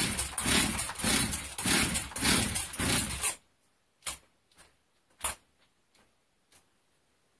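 Partner 510 two-stroke chainsaw engine running unevenly, its sound pulsing about two to three times a second, then cutting out abruptly about three and a half seconds in. A few faint clicks and knocks follow.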